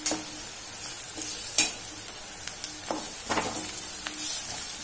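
Golden-brown onions and ginger-garlic paste sizzling in hot oil in a metal kadai, with a perforated metal spoon scraping and clicking against the pan several times as they are stirred and fried.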